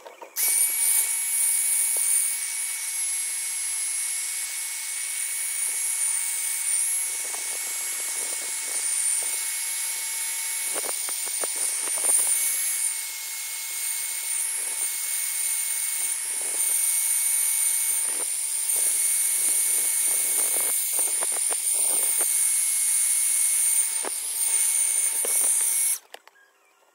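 Handheld hair dryer running steadily, a high whine over its rushing air, switched on just after the start and cut off about a second before the end. A few faint knocks sound under it.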